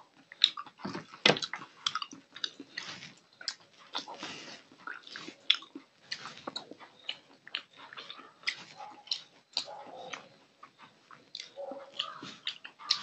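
A person eating a curried rohu fish head with bare hands: wet smacks and crackling clicks as fingers break the head apart and mix it on the plate, along with chewing and lip smacks.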